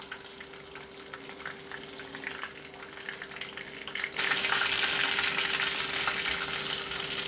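Oil sizzling and crackling in a pan as masala-coated king fish (surmai) steaks shallow-fry. The sizzle is faint at first and turns suddenly louder about four seconds in.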